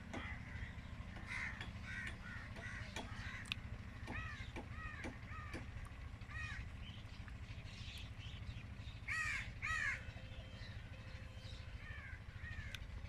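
Crows cawing repeatedly, with two loud caws close together about nine and ten seconds in. Smaller birds chirp briefly in between, over a steady low rumble.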